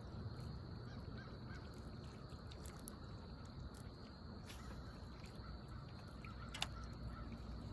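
Faint steady hum of a small electric trolling motor pushing a jon boat, with a sharp click near the end.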